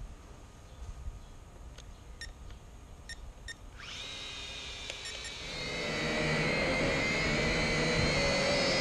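Small quadcopter drone's motors spinning up about four seconds in: a high whine at several pitches that grows much louder as the drone lifts off. A few short beeps come before it.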